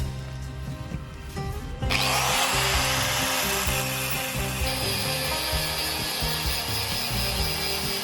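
A power tool working on steel starts about two seconds in and runs steadily, with a thin high whine joining partway through, over background music.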